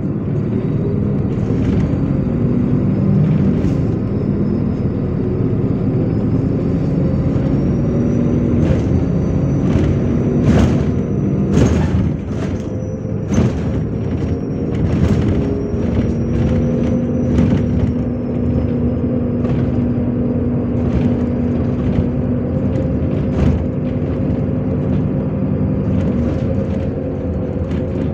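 MAZ-103 city bus under way, heard from inside the cabin: the engine drones, its pitch shifting and then holding as the bus changes speed, while the body gives repeated clatters and knocks over the road, with a faint high whine.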